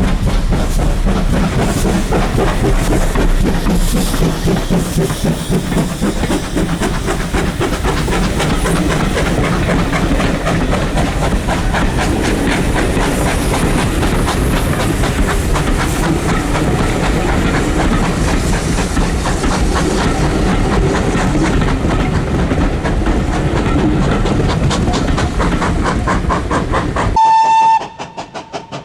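GWR Large Prairie tank locomotive 4110 working a train away under steam, loud, with rapid exhaust beats and wheel clatter. Near the end the noise drops suddenly and a short, high whistle blast sounds.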